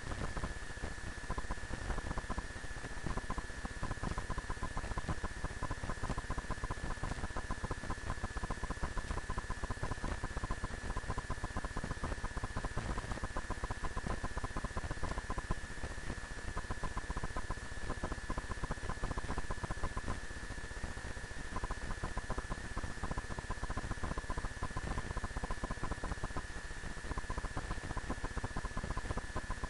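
Steady static hiss with a fine, continuous crackle and a faint high whine: electrical noise in the recording, with no other sound over it.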